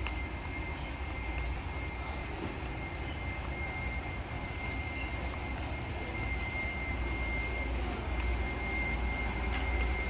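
Steady low rumbling background noise with a faint, continuous high-pitched whine, and a few faint clicks near the end.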